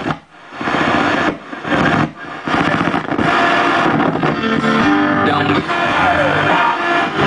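Vintage Realistic STA-84 stereo receiver playing FM radio through its speakers while the tuning dial is turned: stations cut in and out with short silent gaps between them in the first couple of seconds, then it settles on a station playing music.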